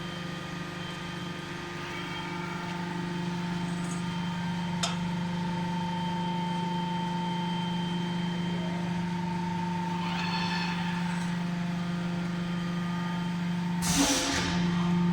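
Automatic ceiling-fan rotor die-casting machine running with a steady hum. A sharp click comes about five seconds in, and a short, loud burst of hissing comes near the end.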